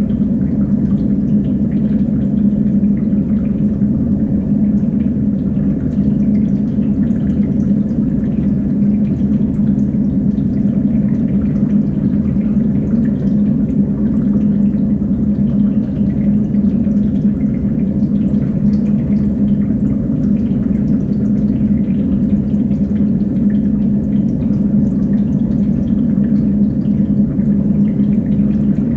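Steady water flow through a recirculating fish-tank rack: a constant low hum with trickling and dripping water.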